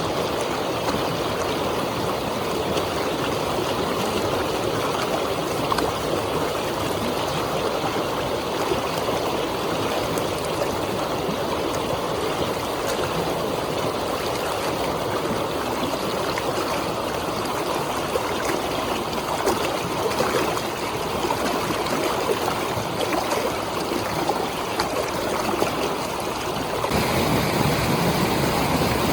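Steady rushing of water released through a dam's flood discharge. About 27 seconds in, the sound changes abruptly to a deeper rumble with less hiss.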